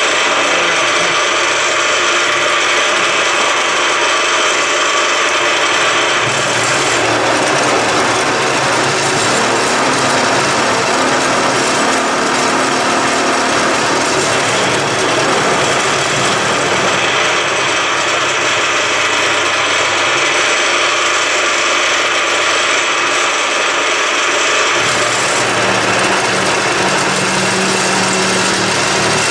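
Milling machine turning an end mill at 540 rpm, taking 1 mm cuts to mill a slot in the end of a metal workpiece held upright in a vise. The cut runs continuously and loudly with a fair bit of chatter, and the sound shifts a few times as the cut progresses.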